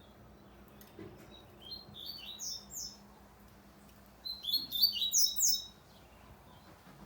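Double-collared seedeater (coleiro) singing two short phrases of quick, high chirping notes, the second phrase louder, a little more than a second apart.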